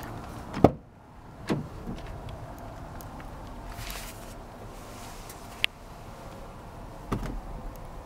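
Renault Master van's cab door being opened: a loud latch clunk about half a second in, then a second knock a second later. A sharp click comes in the middle, and another knock near the end.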